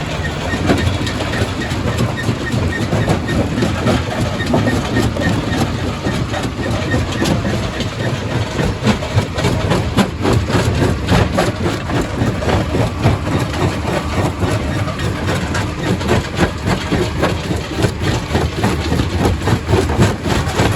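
Quarry primary rock crusher running with a steady heavy drone, overlaid with a dense run of sharp cracks and knocks of stone being broken, busier from about six seconds in.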